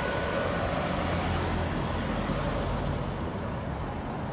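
Steady roar of a landing jet airliner on low final approach mixed with motorbikes and cars on the road beneath it, easing off slightly toward the end.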